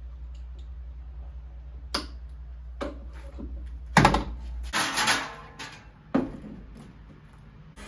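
Sharp metallic clicks and knocks of hand tools on the tailgate fittings of a microcar, then a loud knock about four seconds in, followed by a second and a half of rattling clatter as a metal stepladder is handled, and another knock about six seconds in.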